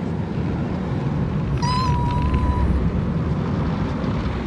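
Automatic car wash heard from inside the car: a steady low rumble of water spray and wash machinery against the car. About a second and a half in, one high-pitched squeal is held for about a second.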